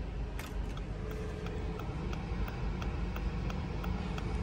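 Hazard flashers of a 2021 Dodge Journey SXT ticking evenly, about two to three clicks a second, in the cabin. Under them is the steady low hum of the 2.4-litre four-cylinder engine idling.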